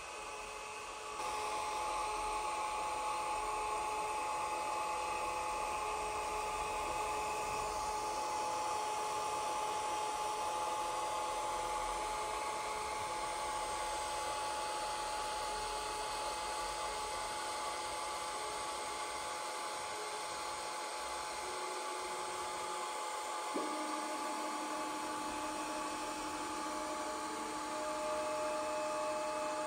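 A Snapmaker Artisan running: a steady motor whine over a fan-like hiss, with several steady tones that switch on and off and change pitch. It steps up in level just over a second in, and its tones shift about two-thirds of the way through.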